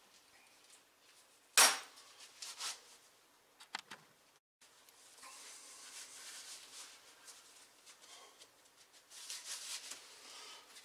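Light metal clinks and handling of a steel plate being set on a car clutch pedal and clamped with locking pliers. The loudest is one sharp clack about a second and a half in, followed by a few smaller clicks, then only faint rustling.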